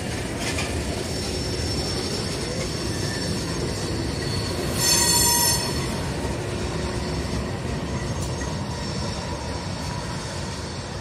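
Freight train rolling past at close range: a steady rumble of hopper-car wheels on the rails, with the train's diesel locomotives drawing level near the end. About five seconds in, a loud high-pitched wheel squeal rings out for about a second.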